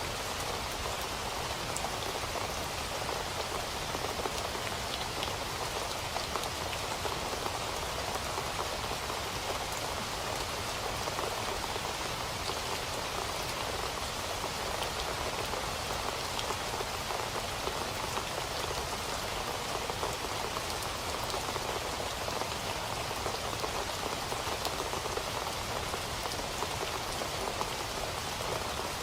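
Steady rain falling, a dense even patter of drops on hard surfaces.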